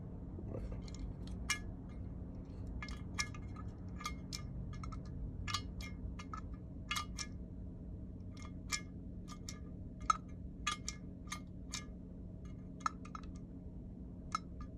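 Light, irregular metallic clicks and taps as fingers handle the brass float and aluminium body of an Autolite 2100 carburetor during a float adjustment.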